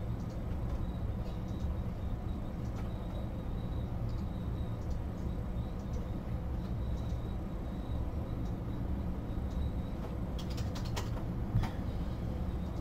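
Steady low room noise with a faint hum, broken by a few faint clicks about ten to eleven and a half seconds in.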